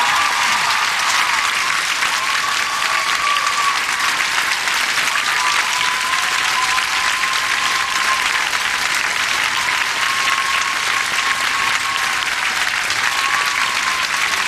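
Large audience applauding steadily, with a faint high tone held over the clapping.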